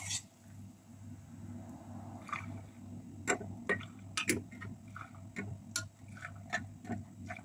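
Scattered light metallic clinks and clicks of a ladle against a stainless-steel pot as hot brine is scooped up, over a low steady hum.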